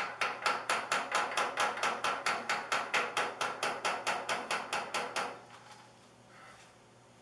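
Hammer tapping rapidly on a length of pipe slid over a rear-tine tiller's tine shaft, driving a new oil seal square into its housing. About five even taps a second for some five seconds, then the tapping stops.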